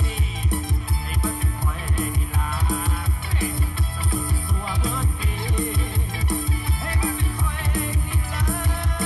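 Music played through an AIWA MI-X180 Retro Heritage Bluetooth speaker and picked up by a phone's built-in microphone: a song with a heavy, steady bass beat.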